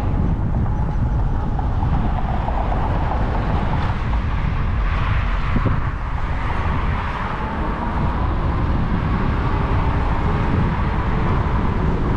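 Wind rumbling over an action camera's microphone while riding an e-bike, steady throughout, with a faint thin whine held underneath that drifts slightly higher in pitch in the second half.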